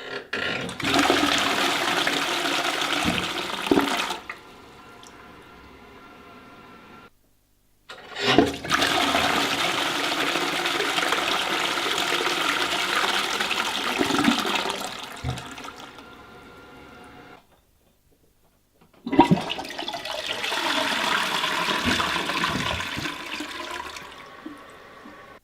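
Three toilet flushes, one after another. Each begins with a click, then a loud rush of water for several seconds, and trails into a quieter steady hiss before cutting off. Short silences separate the flushes.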